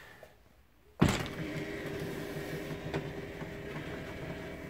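Motor of a motorhome's electric drop-down roof bed lowering the bed: a sudden click as it switches on about a second in, then a steady motor whir.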